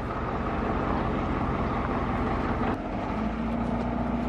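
Forklift engine running steadily while it holds up the end of a sailboat mast, with a low hum that grows a little stronger about three seconds in.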